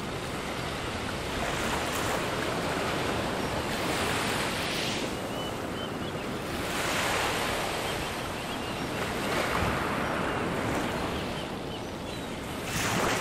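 Sea surf breaking and washing up on a sandy beach, swelling and ebbing about every two and a half seconds, with wind.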